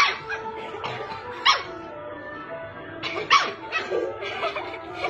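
A dog barking: three sharp barks, about a second and a half apart.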